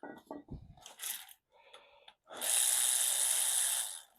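A few light knocks and clicks of metal parts being handled, then a loud steady hiss lasting under two seconds that cuts off sharply.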